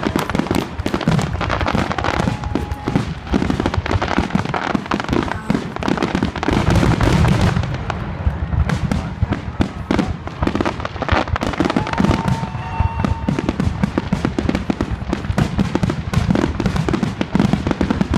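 Fireworks display going off without let-up: a dense run of overlapping bangs and crackling bursts.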